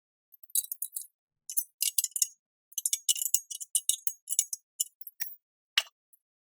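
Irregular short bursts of high-pitched clinking and scraping, as of small hard parts being handled or worked by hand.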